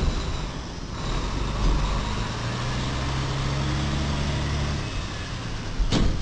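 Semi truck's diesel engine pulling as the rig creeps forward, its steady low note fading out about three-quarters of the way through as the truck stops. A sharp knock comes right at the start and another near the end.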